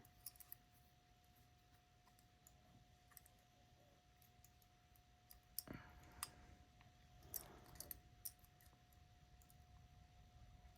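Faint, scattered metallic clicks of a lock pick and tension tool working the levers of a 4-lever lever lock: a few quick ticks just after the start, then a handful more about halfway through and later.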